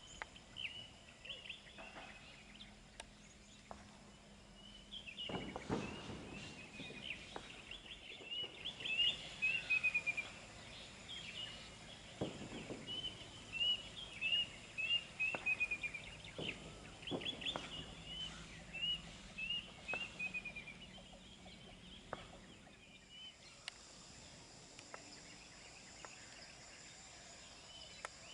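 Small birds singing: runs of quick, high chirps repeated over and over, with a few sharp knocks about five, twelve and seventeen seconds in.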